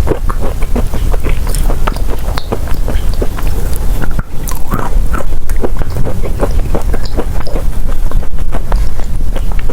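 Close-miked biting and chewing of chalk: dense, irregular crisp crunches and clicks over a steady low rumble.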